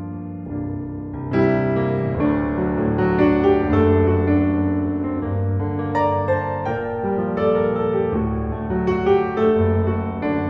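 Background music led by piano, playing sustained chords and a melody, growing fuller about a second and a half in.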